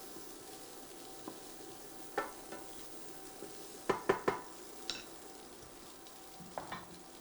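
Vegetables and couscous frying gently in a pan with a soft, steady sizzle, while a utensil stirs them and knocks against the pan several times, with a quick run of three knocks about four seconds in.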